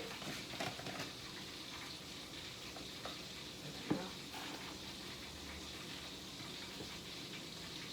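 Floured chicken pieces frying in hot oil at medium heat: a steady, quiet sizzle, with a faint knock about four seconds in.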